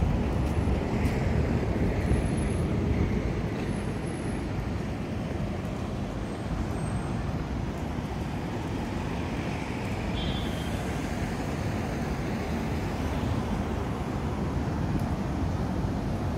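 City road traffic: a steady low rumble of vehicles on the street alongside, a little louder in the first couple of seconds and then even.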